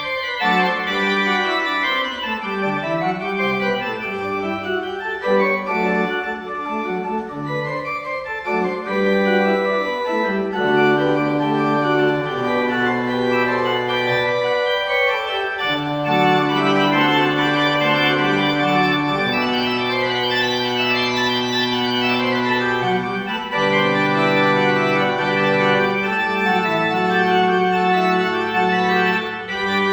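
Organ music: chords of held notes over sustained bass notes, with faster-moving lines in the first several seconds and longer held chords after that.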